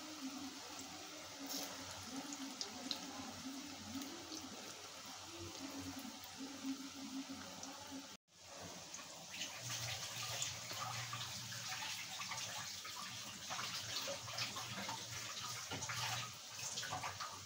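Noodle pakoras deep-frying in hot oil in a metal wok: a steady sizzle with scattered crackles and pops. The sound cuts out briefly about eight seconds in, and the sizzle is denser after that.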